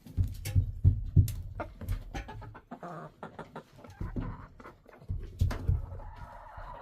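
Chickens clucking, among close knocks and heavy low thumps in two bunches, near the start and about five seconds in.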